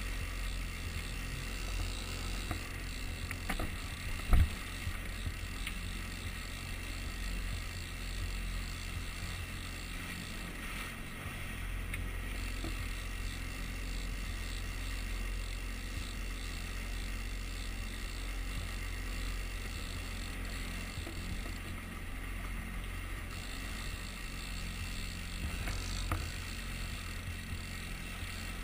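Yamaha outboard motor running steadily at trolling speed, a low steady rumble with water rushing past the hull. A single sharp thump about four seconds in.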